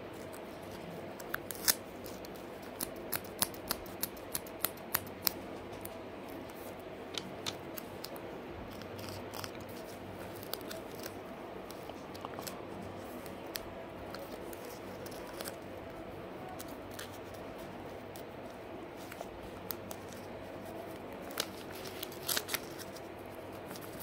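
Paper pieces being handled: a paper cutout doll and paper flaps sliding, rustling and tapping against a paper playset, with a run of sharp crisp clicks early on and another cluster near the end.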